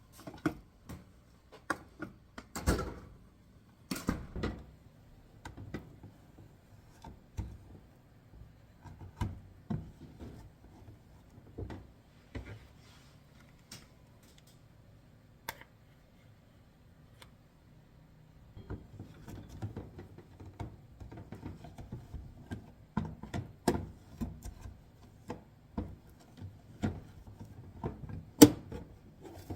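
Household containers being handled: irregular clicks, taps and knocks as things are picked up, moved and set down, busier in the last third, with one sharp click near the end. A faint low hum runs underneath.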